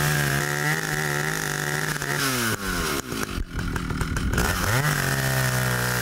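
Two-stroke chainsaw cutting into the base of a standing tree trunk at full throttle. The engine pitch sags about two and a half seconds in as the chain bites into the wood, stays low and uneven for a couple of seconds, then climbs back to a steady high pitch.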